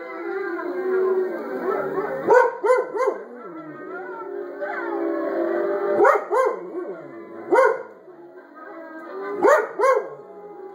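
A wolf pack howls in chorus through a TV's speakers, the long, overlapping howls rising and falling in pitch. Over it a dog barks and yips sharply about eight times, several of them in quick pairs.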